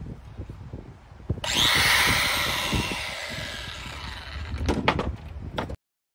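Angle grinder switched on about a second and a half in, running at speed with a loud whine, then fading as it spins down; a few sharp clicks follow before the sound cuts off. Wind rumbles on the microphone before the grinder starts.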